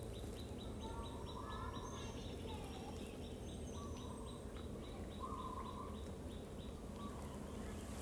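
Outdoor ambience with animal calls: a rapid series of short, high, falling chirps, about four a second, that stops about six seconds in, with a few shorter, lower calls scattered between them.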